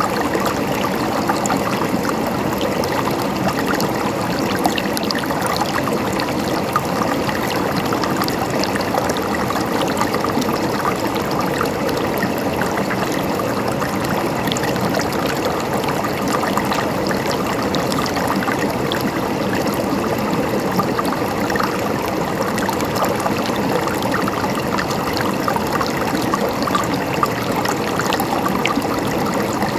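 Mountain stream flowing and gurgling over rocks, a steady wash of water with many small splashes and trickles.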